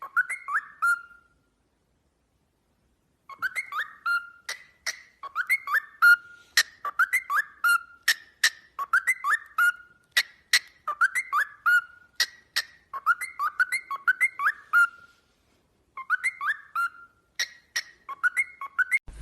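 A pet bird whistling a short phrase over and over, about once a second: a sharp click followed by a few falling whistled notes. There is a pause of about two seconds near the start.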